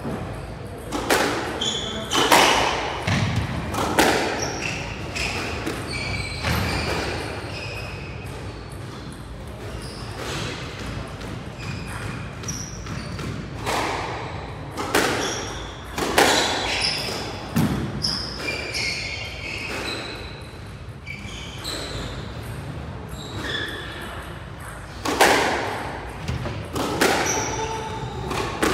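Squash rally: a squash ball smacks off rackets and the court walls in sharp, echoing hits a second or two apart, with short sneaker squeaks on the wooden floor between them.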